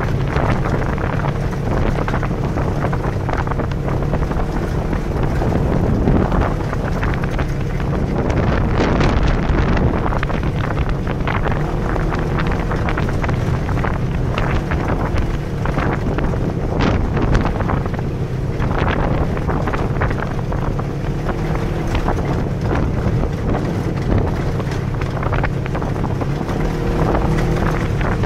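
Side-by-side off-road vehicle's engine running steadily while it drives along a dirt track, with wind buffeting the microphone and scattered short knocks and rattles from the rough ground.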